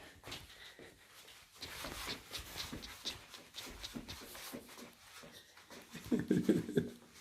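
Green-cheeked conure making a quick run of soft clicks, followed near the end by a louder scuffling burst.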